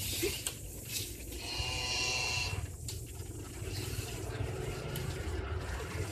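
A farm animal's call, about a second long, about a third of the way in, over a steady low rumble.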